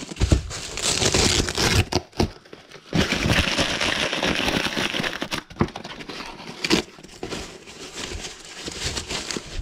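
Thin white foam packing sheet crinkling and rustling as it is pulled and peeled away by hand. It comes in uneven stretches, heaviest about three to five seconds in, with a few sharp crackles.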